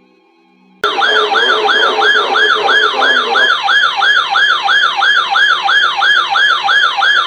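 Electronic yelp-style siren wailing in fast rising-and-falling sweeps, about three a second. It starts suddenly about a second in and is loud.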